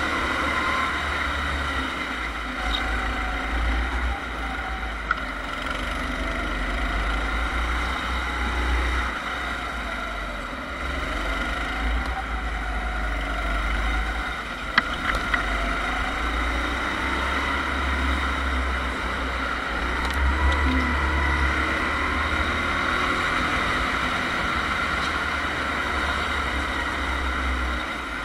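Rental go-kart's engine running under the driver, heard from a camera mounted on the kart, its pitch rising and falling as the throttle is worked through the corners. A heavy low rumble lies under it throughout.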